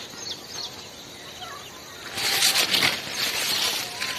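Sorghum leaves and stalks rustling and brushing together as someone pushes through the crop, loud for about two seconds from around the halfway point. Faint bird chirps come before it.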